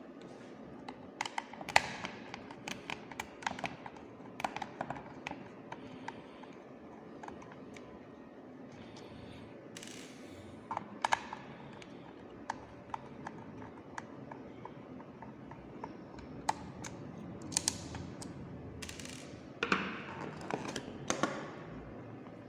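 Scattered small clicks and taps from unscrewing and opening the plastic housing of a handheld fetal doppler, with a few short scraping rustles about halfway through and near the end.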